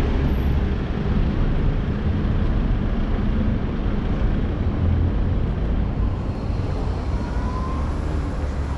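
Steady rumble of city street traffic: a continuous noise, heaviest in the low end.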